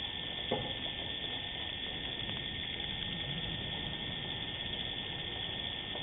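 Steady hiss with a faint steady whine, the self-noise of a security camera's built-in microphone, and one brief soft knock about half a second in.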